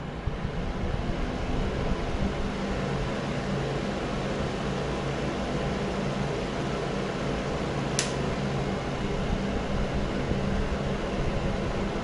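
Mondial A-08 electric fan heater running: the fan blows with a steady whoosh over a low motor hum. A short click sounds about eight seconds in.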